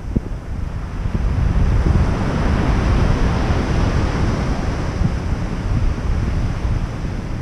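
Ocean surf breaking and washing up a sand beach, its hiss swelling about a second in and slowly fading, over a steady low rumble of wind on the microphone.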